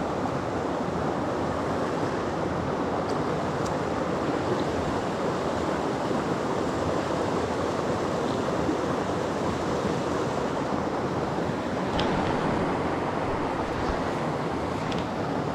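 Mountain stream water rushing in a steady, even hiss, with a few faint short clicks over it, the clearest about twelve seconds in.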